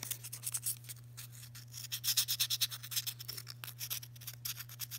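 Fine sandpaper rubbed by hand against the edges of a metal ring's shank in quick short strokes, a dry scratching that is busiest in the middle, over a steady low hum.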